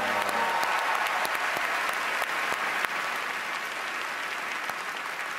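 Large audience applauding, a steady wash of clapping that eases slightly toward the end.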